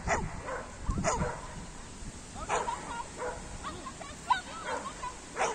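A dog barking: several short barks, about a second apart, with some raised in pitch.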